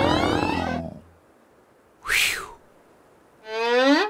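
Cartoon sound effects: a monster's roar dies away in the first second, a short whoosh follows about two seconds in, and near the end comes a rising whistle-like glide.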